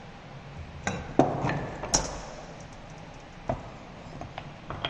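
Wooden workpieces of a T halving joint knocking and clacking as they are taken apart and set down on a workbench: a few sharp knocks, the loudest just over a second in, then fainter clicks.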